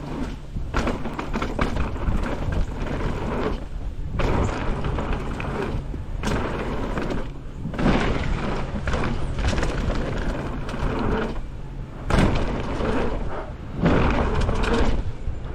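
Mountain bike riding fast down a rough downhill trail: a steady rumble of wind and tyres on dirt, with frequent knocks and thuds as the bike rattles over roots and rocks.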